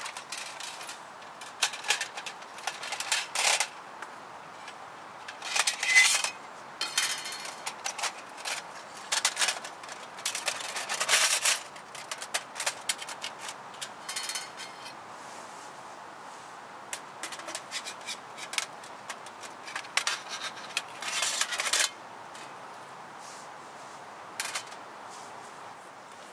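Irregular knocks and clatters of camping gear being handled by hand, some with a brief ringing, coming in clusters with a lull in the second half.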